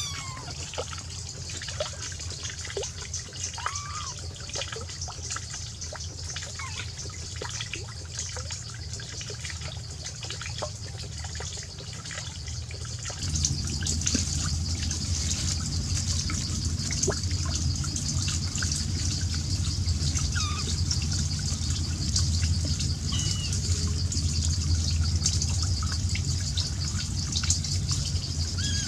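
Water trickling steadily, with a few faint short kitten mews now and then. About halfway through, the sound gets louder and a low rumble comes in.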